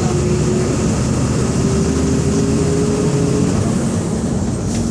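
Volkswagen 17.230 EOD bus's diesel engine running under way, heard on board. A whine rises slowly in pitch through the first few seconds as the bus picks up speed. A few sharp clicks sound near the end.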